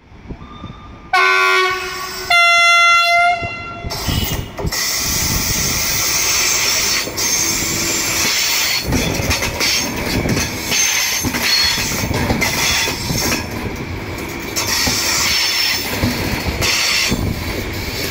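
Frecciarossa 1000 (ETR 1000) high-speed electric train sounding two horn blasts, the second louder and higher, then rolling slowly past close by as it comes into the station. Wheels clatter over the track with knocks and a few brief squeals.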